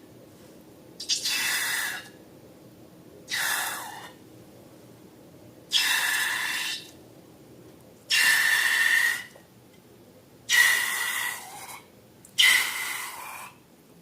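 A series of six hissing bursts, each about a second long and coming roughly every two seconds, with a faint whistle running through each one.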